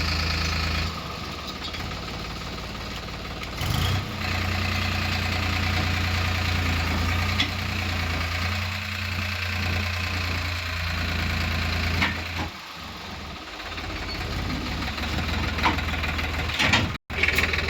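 Heavy diesel engine of an earth-moving machine running steadily with a low, even hum and a knocking beat, with a few sharp knocks late on.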